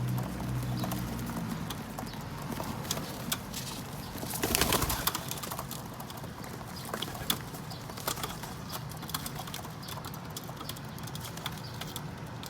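Feral pigeons cooing low in the first second or so, with many small sharp clicks of their beaks pecking sunflower seeds on the rooftop. About four and a half seconds in there is a short, louder burst of noise.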